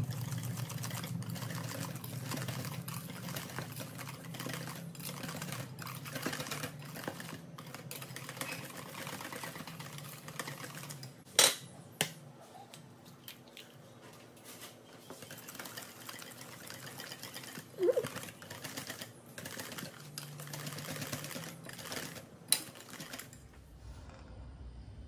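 Wire balloon whisk beating pancake batter in a stainless steel bowl: a fast, steady run of clinks and scrapes against the metal. About halfway through the whisking stops, and a few louder, sharp knocks follow.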